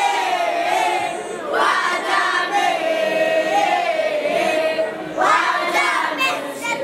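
A boys' choir singing an Arabic devotional qasida in unison, one melodic line that bends and glides, with fresh phrases beginning about a second and a half in and again near five seconds.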